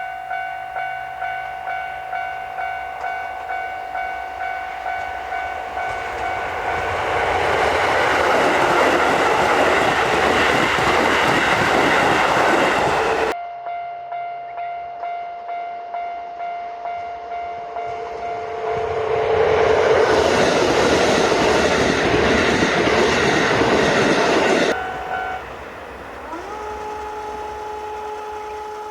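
Japanese level-crossing warning bell ringing in a steady beat of about two strikes a second, while a Keisei Main Line train passes with a swelling rumble of wheels on rail. After an abrupt cut the bell rings on and a second train passes the same way. Near the end a held electronic tone starts, gliding up to two steady notes.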